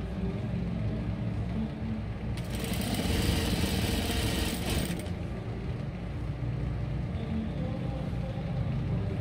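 Industrial lockstitch sewing machine sewing a neckline seam: a steady motor hum, with a louder run of fast stitching from about two and a half to five seconds in.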